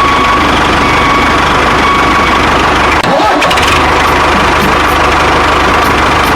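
Engine running steadily with an even low throb, breaking off for a moment about three seconds in and then going on.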